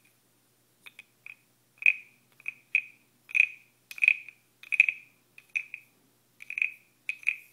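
Wooden croaking frog (frog guiro) played by scraping its stick along the ridged back. It gives about a dozen short, bright croaks at uneven spacing, roughly two a second, starting faintly about a second in.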